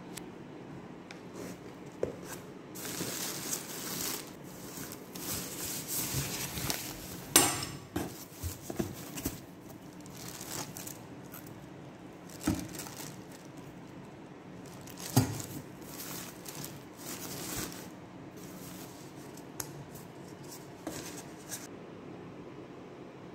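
Rustling and crinkling of packaging (foam wrap, plastic bags and cardboard) as a boxed chandelier is unpacked, with a few sharp knocks and clinks as its metal parts are handled.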